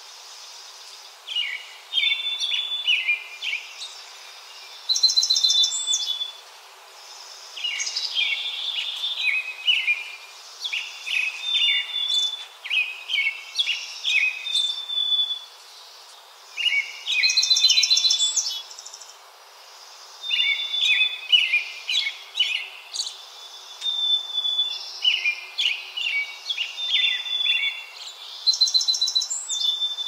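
A small songbird sings high-pitched songs over and over. Each song is a few seconds of quick twittering notes and buzzy trills, with short pauses between songs.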